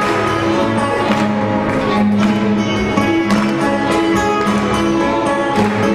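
Chamber string orchestra and acoustic guitar playing a lively instrumental together, with strings holding sustained notes over steady percussion strokes.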